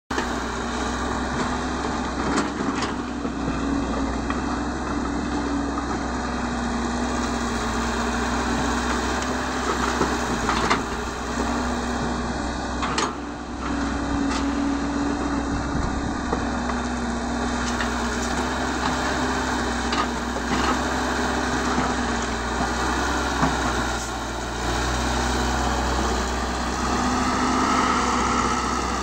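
Caterpillar 312 hydraulic excavator's diesel engine running under working load as it digs and loads, its pitch shifting as the hydraulics work. Scattered sharp knocks from the bucket and rocks come through now and then.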